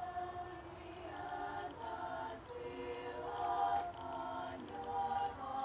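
A choir of women's voices singing a cappella, holding notes in chords that change about every half second.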